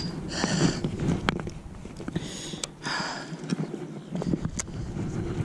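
Footsteps on loose pebbles and clothing brushing against a chest-mounted camera, with a few sharp clicks.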